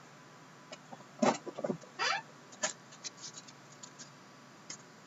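Trading cards and their packaging being handled: a string of short scrapes, rustles and clicks, the loudest about a second and two seconds in.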